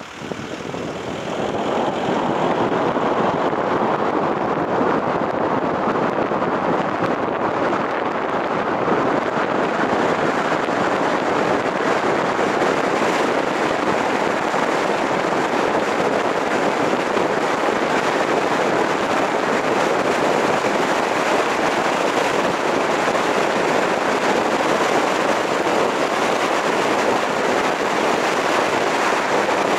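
A car driving: steady road and wind noise, swelling over the first couple of seconds as the car gets up to speed and then holding even.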